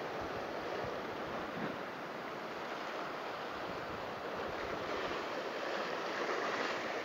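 Ocean surf washing over and through a rocky reef, a steady rushing that swells a little near the end.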